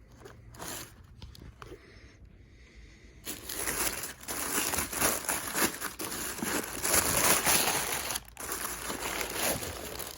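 Packing material crinkling and rustling as it is handled, starting about three seconds in with a short break near the end; before that, only a few faint handling sounds.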